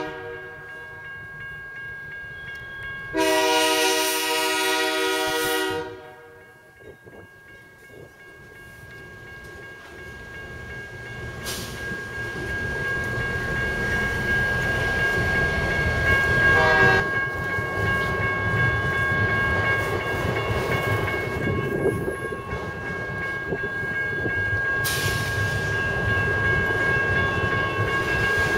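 Diesel freight locomotive's air horn: the tail of one blast as the sound opens, then a second blast of about two and a half seconds, and a brief toot later on. The train's cars roll past in a rumble that grows steadily louder, under two thin steady high tones.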